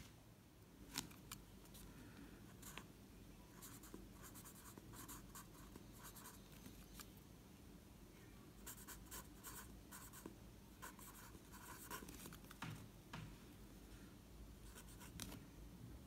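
Faint scratching of a Camlin Nouvel 0.7 mm mechanical pencil's lead writing cursive on lined notebook paper, in short clustered strokes. A light knock about a second in.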